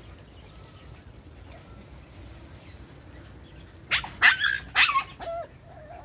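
Flamingo calling: three loud honks in quick succession about four seconds in, then a shorter, quieter one.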